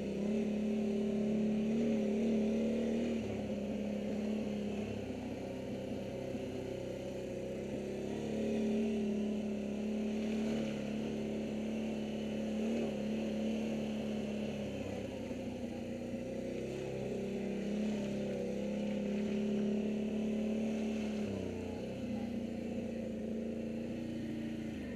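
ATV engine running as the quad rides along, its pitch rising and dipping a little with the throttle.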